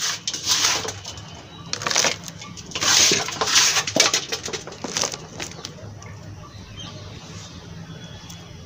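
Hands scooping gritty potting soil out of a plastic tub and dropping it into a metal basin, with scraping and rustling in several bursts with small clicks over the first five seconds, then quieter.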